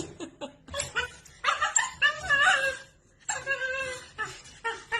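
A dog barking and whining, with two longer wavering cries in the middle.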